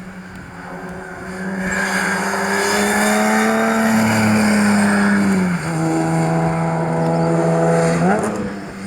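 Rally car at speed on a stage, its engine running hard and growing louder as it approaches. The engine note drops abruptly a little past halfway, then climbs sharply near the end.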